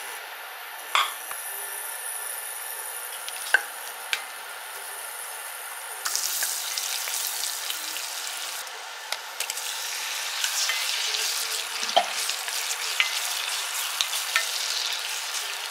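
Butter sizzling in a saucepan while a wooden spoon stirs it, the spoon knocking against the pan now and then; the sizzle grows louder about six seconds in.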